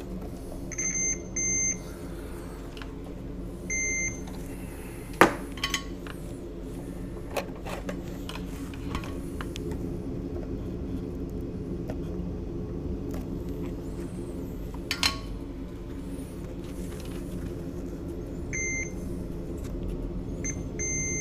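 Short electronic beeps from a multimeter's continuity tester as the test probes touch points on a laptop motherboard, sounding when they find a conducting path, the sign of a short. There are two beeps about a second in, one near four seconds, and two more near the end. Under them runs a steady hum of bench equipment, with a single sharp click about five seconds in.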